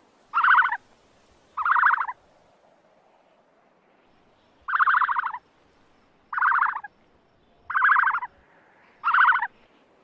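A bird giving six short rattling calls, each about half a second long, at uneven intervals.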